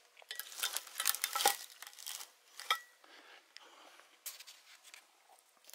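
Metal clinking and scraping as a piece of aluminum aircraft wreckage, a bolted engine accessory part, is handled and shifted among rocks and debris. The handling is busiest in the first two seconds. A sharp clink with a brief ring comes near three seconds, and a few fainter clicks follow.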